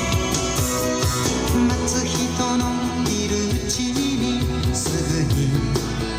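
Music with a singing voice and a steady beat.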